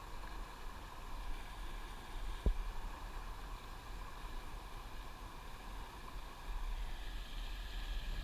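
Steady rush of fast-flowing river water, with low wind rumble on the microphone. A single knock about two and a half seconds in.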